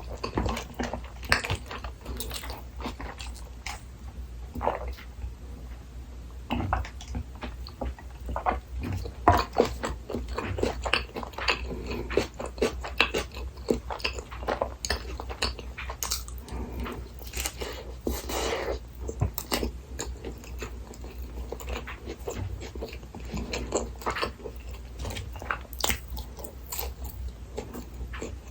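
A person biting and chewing food close to the microphone, with many irregular small wet mouth clicks and crunches.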